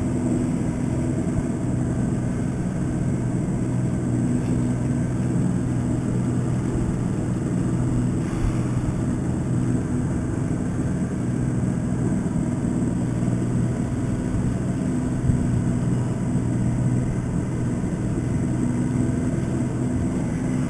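Boat motor running at a steady speed, an even engine drone over a rushing hiss of wind and water as the boat travels.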